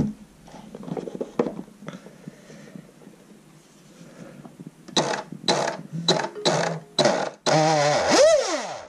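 Surpass 6900 KV brushless motor in an FT009 RC boat, run out of the water at around 75% throttle. After a few seconds of faint clicks, it gives several short throttle blips about five seconds in, then a longer rev of about a second whose whine drops away as the motor spins down near the end. Really loud.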